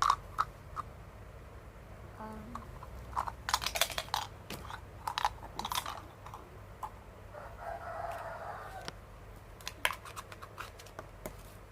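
Small plastic toy kitchen pieces clicking and clattering as they are handled in pretend cooking, with a short scraping rustle about eight seconds in.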